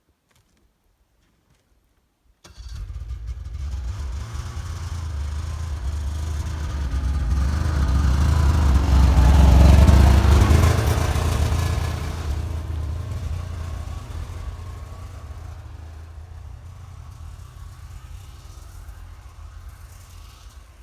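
Snowmobile engine that starts abruptly out of silence, then runs louder and louder to a peak about ten seconds in before fading away, as a machine does when it passes by and drives off.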